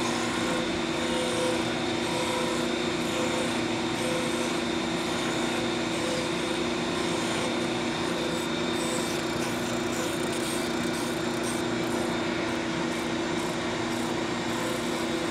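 Delta 12-inch disc sander running with a steady motor hum while a wooden pattern disc is held against the spinning abrasive and turned round, giving an even rasp of wood being sanded.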